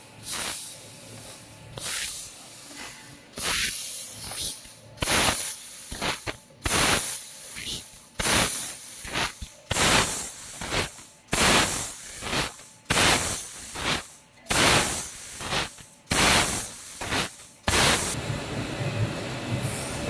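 Semi-automatic laser tube cutting machine giving short bursts of hissing air about every one and a half seconds, one per cut or machine cycle. Near the end the bursts stop and a steady machine hum takes over.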